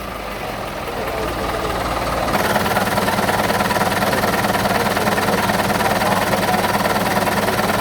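Truck diesel engine with an open 'umplong' exhaust running with a fast, even rattle of firing pulses. It gets louder about two seconds in, then holds steady.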